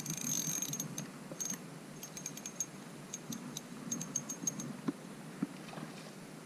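Shimano Sienna 500FD spinning reel being cranked: a quick run of small mechanical clicks from the reel's gears that stops about four and a half seconds in.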